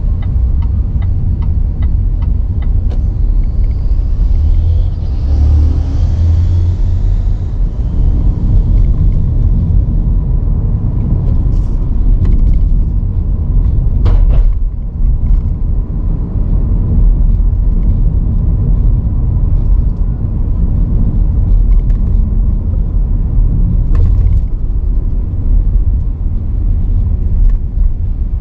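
Car being driven, with a loud, steady low rumble of road and engine noise. Evenly spaced ticks sound for the first few seconds.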